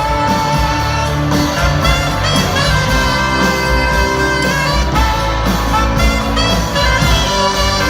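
Live rock band playing an instrumental break with no vocals: a held lead melody over bass and drums.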